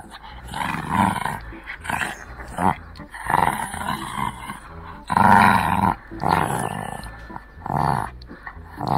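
Shih Tzu puppy growling in repeated bursts while tugging on a braided rope toy, the loudest growl about five seconds in. It is play growling during a tug game, not aggression.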